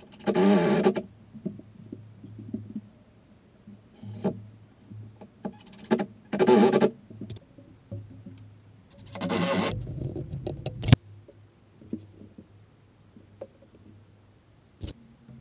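Cordless drill/driver whining in short runs of about a second each, four times, driving screws that fix iron hooks to a wooden board. A sharp click near the end.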